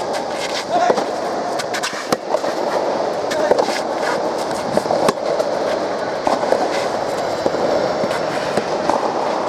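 Soft tennis rally: rackets striking the rubber soft-tennis ball, with sharp hits roughly every second or so over a steady background of hall and crowd noise.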